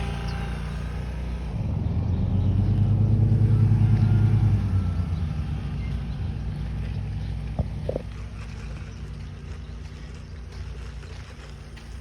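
A motor vehicle's engine, swelling to its loudest about four seconds in and then fading away, with a short knock a few seconds later.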